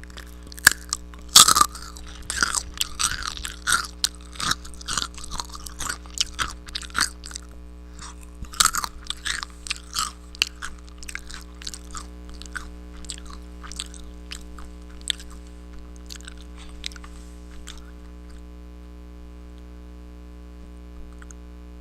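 Close-miked chewing of crunchy food, a dense run of crisp crunches that thins out after about ten seconds to occasional mouth clicks and then mostly stops near the end. A steady low electrical hum runs underneath.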